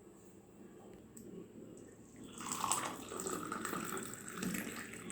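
Freshly boiled black coffee being poured through a strainer into a cup, a steady pour of liquid that starts about two and a half seconds in.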